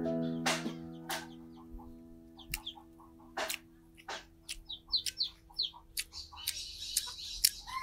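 Chickens clucking in short repeated calls, with small birds chirping and a few sharp clicks.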